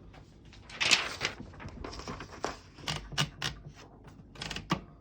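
Irregular mechanical clicks and clunks from a 1937 Underwood Universal manual typewriter, with a louder scraping rustle about a second in.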